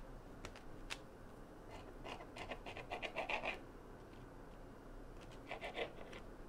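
Knife cutting through soft biscuit dough and tapping and scraping on a plastic cutting board: a couple of single clicks, then two runs of quick strokes, the longer about two seconds in and a shorter one near the end.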